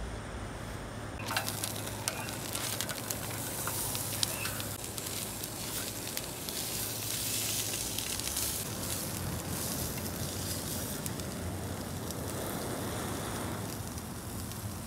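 Pre-cooked chicken fajita meat sizzling in a non-stick frying pan on a canister gas camp stove. The sizzle starts suddenly about a second in, as the meat goes into the hot empty pan, and runs on steadily with scattered scrapes and taps of a spatula stirring it.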